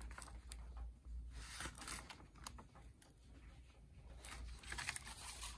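Faint rustling of paper as printed sheets are lifted and turned by hand, in short scattered rustles.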